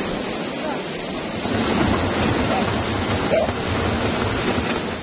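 Wooden outrigger boat's hull scraping and grinding over a gravel beach as it is pushed along, a rough rumbling noise that grows louder about a second and a half in.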